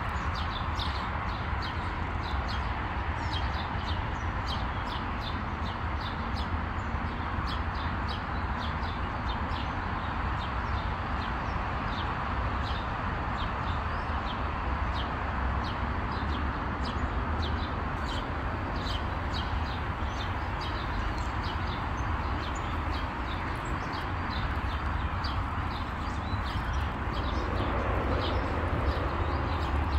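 Footsteps on an asphalt path at a steady walking pace, about two steps a second, over a constant low rumble and hiss.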